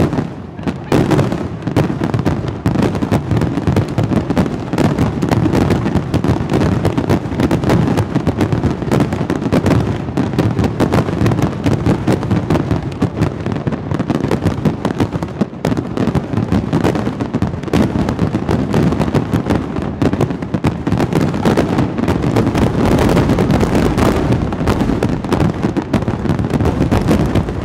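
Fireworks display: many aerial shells bursting in rapid, unbroken succession, the booms and crackles overlapping into one continuous barrage.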